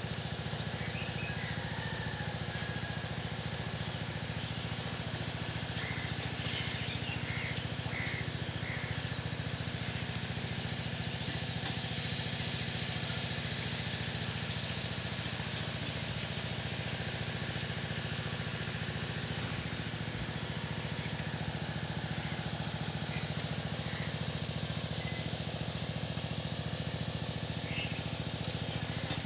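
A steady low rumble with a few faint bird chirps over it, and one short click about sixteen seconds in.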